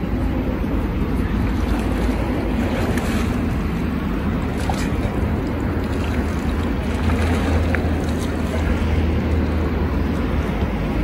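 Steady low rumble of wind on the microphone over water lapping, with a few faint splashes and knocks as a man hauls himself out of the river by a rope onto the boat's side.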